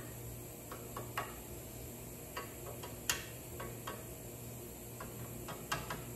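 Scattered light metallic clicks and taps at irregular times, the sharpest about three seconds in, as a piece of sheet metal is shifted and reset in a bending tool. A steady low hum runs underneath.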